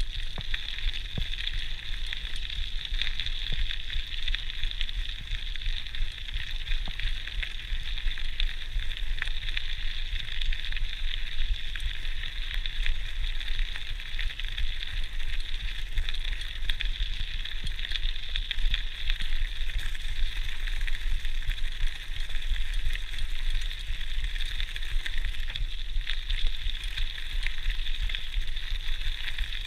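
GT Outpost Trail mountain bike rolling steadily over a gravel track: a continuous crackling crunch from the tyres, with many small rattles and ticks from the bike and a low rumble underneath.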